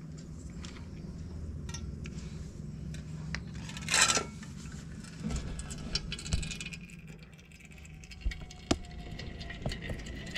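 Scattered metallic clinks and taps of a box spanner working on a motorcycle engine's oil drain bolt as it is undone, with one louder metallic clatter about four seconds in, over a steady low hum.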